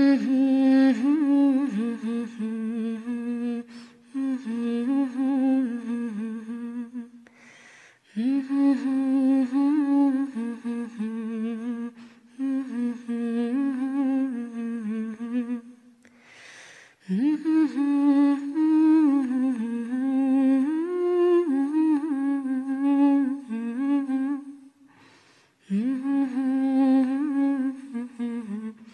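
A solo voice humming a slow, wordless melody in long phrases of several seconds, with short breaths between them: the humming interlude of a Persian vocal song.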